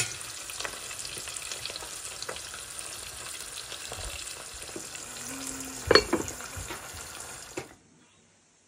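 Pot of sabzi polo (Persian herb rice) sizzling and steaming on a gas hob, with a sharp knock about six seconds in. The sizzling cuts off suddenly near the end.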